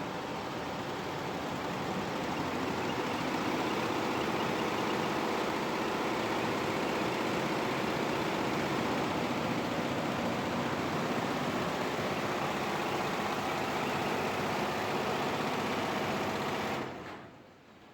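Multi-head computerized embroidery machine running, its needles stitching in a fast, steady chatter; it stops suddenly near the end.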